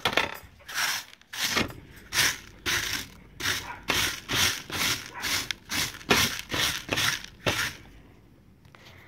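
Chipped rock gravel rattling and scraping in a green sifting pan with a wire-mesh screen, in short, sharp strokes about twice a second that stop near the end.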